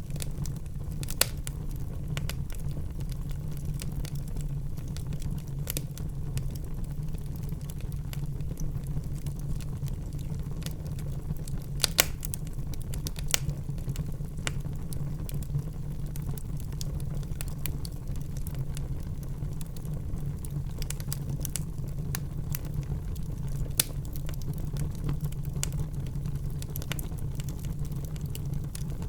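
Wood fire crackling in a fireplace: irregular sharp pops and snaps over a low steady rumble, with a few louder pops about a second in, around the middle and near the end.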